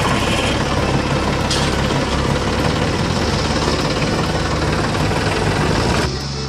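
Toy tractor running as it drives off: a steady engine-like running sound that cuts off near the end.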